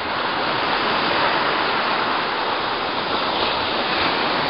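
Steady wash of small waves breaking along a rocky shoreline.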